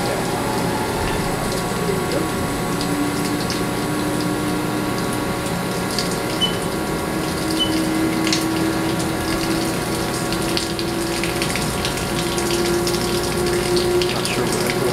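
Haas ST30 CNC lathe cutting a metal part under a Chip Blaster 3000 psi high-pressure coolant jet. The coolant hisses and splashes steadily over the hum of the running machine, and one tone climbs slowly in pitch through the cut.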